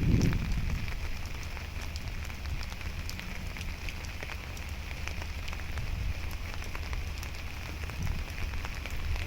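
Heavy rain falling steadily, with scattered individual drops ticking close by. A brief low rumble at the very start.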